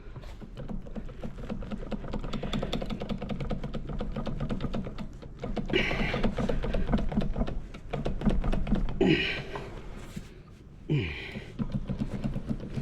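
Rapid clicking of a ratchet wrench working the connecting rod bearing cap bolts of a seized engine, with louder bursts about six, nine and eleven seconds in.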